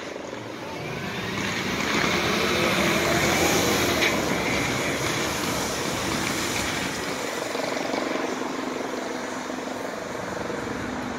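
Helicopter flying overhead: a steady rotor and engine drone that grows louder about two seconds in and then slowly eases off.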